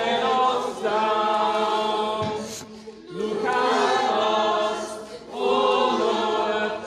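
A congregation of many voices singing a slow prayer chant together, in long held phrases with short breaks between them.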